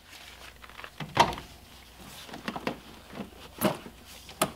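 Rubber air-intake hose being worked loose and pulled off a throttle body by hand: scattered rubbing and clicking handling noises, with a sharper knock about a second in.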